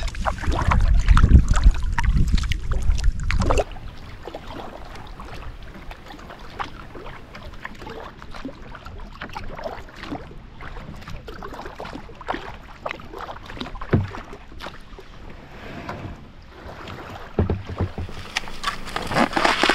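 Kayak paddling on calm water: paddle strokes splashing and dripping, with small scattered splashes. Wind rumbles on the microphone for the first few seconds.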